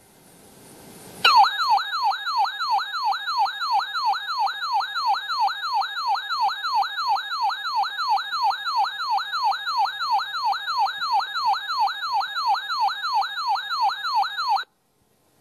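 Weather radio test alarm tone: an electronic, siren-like tone sweeping rapidly up and down, about three sweeps a second, after about a second of faint radio hiss. It cuts off suddenly near the end.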